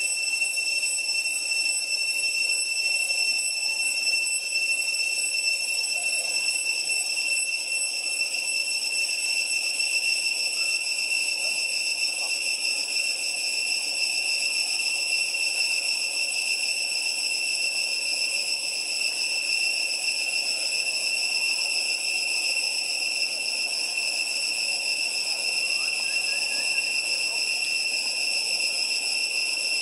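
Steady, high-pitched insect drone from cicadas in the trees, holding one unbroken pitch throughout.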